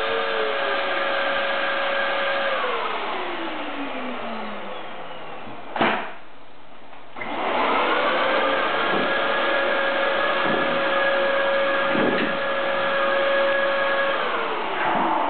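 Vacuum cleaner motor running with a steady whine, then winding down after it is switched off. A sharp click, a short lull, then the motor spins back up about seven seconds in, runs steadily, and starts winding down again near the end.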